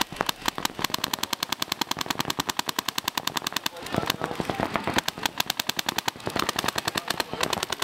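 Paintball markers firing in a rapid, even stream of shots, many per second, the fast ramping fire of a tournament X-Ball game.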